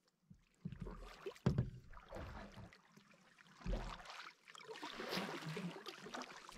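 Canoe being paddled on calm water: faint, irregular paddle strokes with water dripping and lapping along the hull, broken by a few short low thumps.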